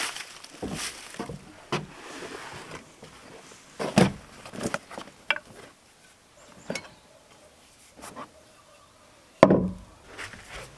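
Footsteps in dry leaves and on wooden plank boards, with a series of sharp wooden knocks and thuds; the loudest single knock comes near the end.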